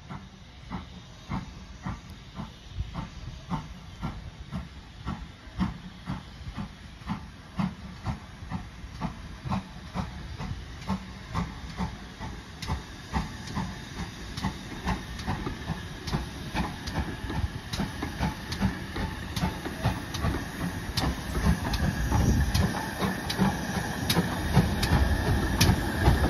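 GWR Manor-class 4-6-0 steam locomotive 7812 Erlestoke Manor working steam: steady exhaust chuffs, about two a second, over a hiss of steam, growing steadily louder as it draws near and passes close near the end.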